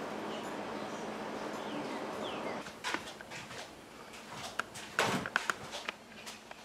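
Quiet hand-seasoning sounds: a scatter of light clicks and taps as seasoning is pinched from a small container and sprinkled onto raw burger patties on a plate. A steady background hiss drops away about two and a half seconds in, and a bird chirps faintly a couple of times before that.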